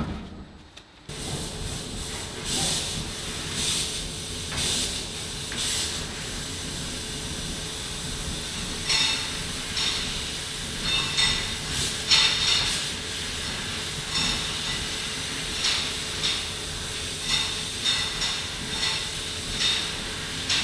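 An enclosure door slides shut with a thud, then a flatbed laser cutting machine runs as it cuts sheet metal: a steady hiss with a low hum, broken by short louder bursts of hissing every second or so.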